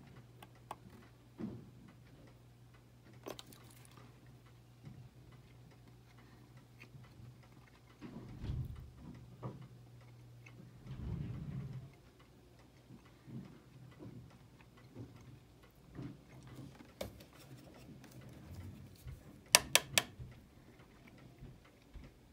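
Scattered small clicks and taps of fingers and a fine screwdriver handling a quartz watch movement in its holder, over a faint low hum that fades out about twelve seconds in. A quick cluster of sharper clicks near the end is the loudest sound.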